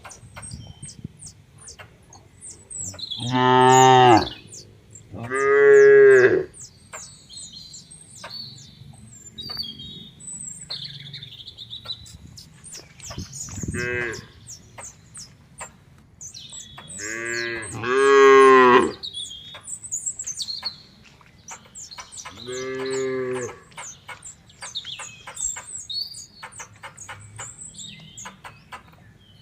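Cattle mooing: about five drawn-out calls, the loudest near the start and in the middle, one of them short. Birds chirp throughout.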